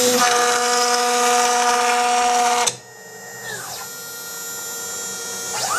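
Quick CNC K6100A router's spindle running with a steady high-pitched whine while milling acrylic. It cuts off suddenly under three seconds in and is followed by a whine falling in pitch. Near the end a whine rises and settles as the spindle spins up again.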